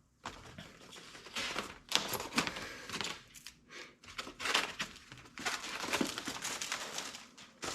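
A cardboard box and its packaging being opened and handled by hand: irregular rustling and crinkling with small knocks.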